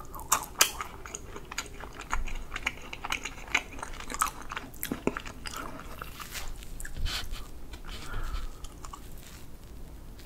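Close-miked chewing with many sharp crunches as a crisp chocolate-striped stick from the cake's topping is bitten and eaten, followed by a fork cutting into soft whipped-cream chocolate cake.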